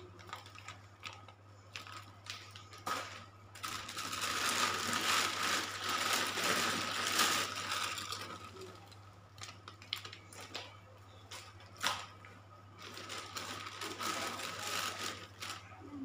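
Clear plastic bag liner rustling and crinkling in irregular stretches as it is pulled and handled, with a couple of sharp knocks about three and twelve seconds in.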